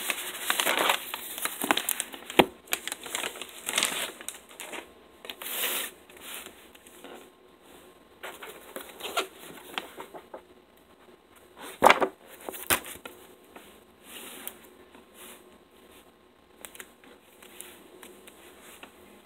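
Plastic mailer bag crinkling as a hardcover book is pulled out, then softer rustling of the book's pages being turned and handled. Three sharp knocks come from handling the book, the loudest about twelve seconds in.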